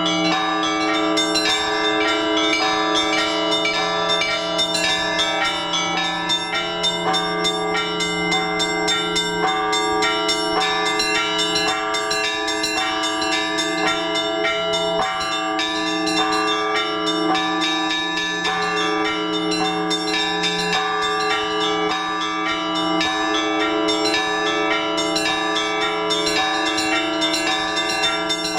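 Orthodox church bells being rung together by a bell-ringer: smaller bells are struck quickly and steadily over the sustained ring of larger, deeper bells, without a pause.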